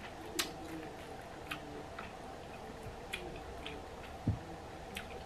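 Sparse soft clicks and taps of eating sticky rice by hand: fingers working rice out of a plastic bag and dipping it into a bowl of chili paste, with a low soft thump about four seconds in.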